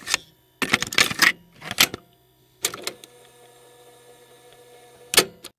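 Bursts of mechanical clicking and clattering, then a faint steady hum, and one sharp click near the end.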